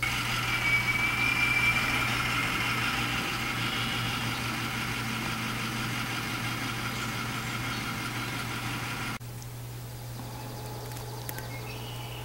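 School bus engine idling steadily while stopped for pickup. The sound drops away suddenly about nine seconds in.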